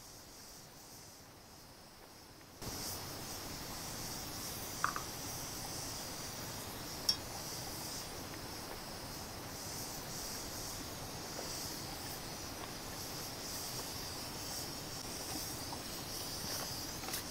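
Steady high hiss with a fine crackle from a wood cooking fire and steaming pots, starting suddenly about two and a half seconds in, with two brief clinks about five and seven seconds in.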